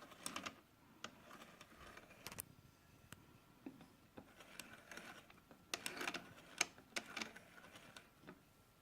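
Irregular light clicks and knocks, several clustered near the middle and toward the end, from hands working on the Singer 431 sewing machine's mechanism, with a faint steady high tone underneath.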